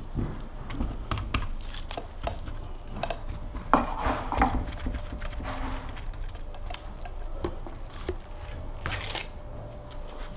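Small resin roller working polyester resin into fibreglass mat on a timber rill: irregular sticky crackles and clicks, with a few louder knocks about four seconds in.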